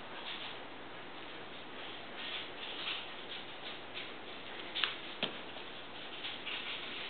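Light rustling and patter of ragdoll cats playing with a feathered wand toy on carpeted stairs, with two sharp clicks about five seconds in.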